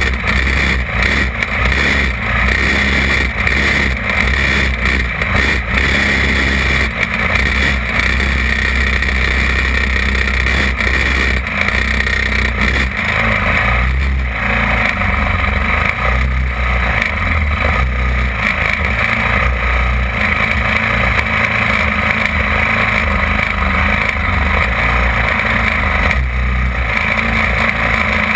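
Onboard sound of a champ kart's engine running, uneven and rising and falling with the throttle for the first half. About halfway through it settles to a steadier low-speed run as the kart sits in a bunched line of karts.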